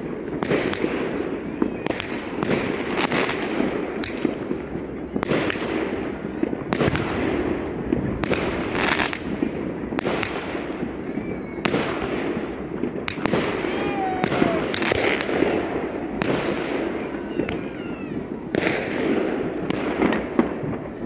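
New Year's fireworks display: a rapid, irregular barrage of bangs from bursting shells and firecrackers over a continuous crackling din, with a few brief whistles.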